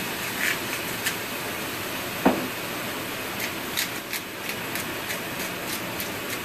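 Spice grinder twisted over a skillet of simmering black beans: a run of quick, light ticks over a steady hiss from the pan, with a single knock about two seconds in.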